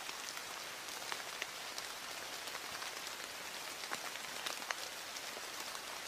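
Steady rain falling, a continuous hiss with scattered ticks of single drops.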